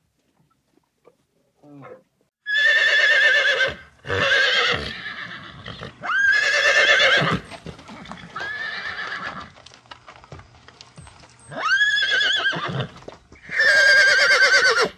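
Horse whinnying repeatedly: six neighs, each about a second long with a quavering pitch, starting about two and a half seconds in, one of them fainter than the rest.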